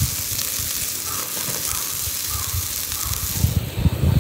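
Food sizzling in a hot frying pan, a steady hiss that drops away about three and a half seconds in, followed by a few low knocks.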